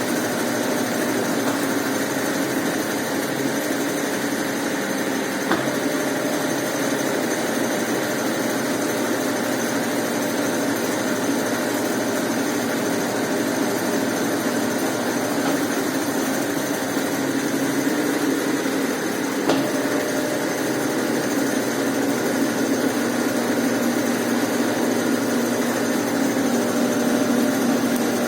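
Brastemp Ative 11 kg top-loading washing machine running with a steady motor hum, with two faint clicks and the hum growing slightly louder near the end.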